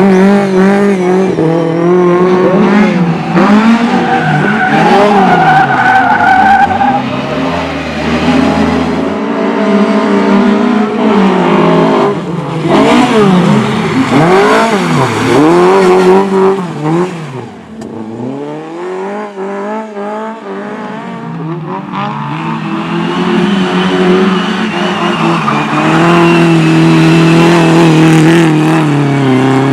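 Race car engines revving hard, with the pitch climbing and dropping again and again as the cars accelerate, shift and lift off. Several engines overlap, and tyres skid as the cars slide. The sound eases off for a few seconds past the middle, then builds again to a steady high rev near the end.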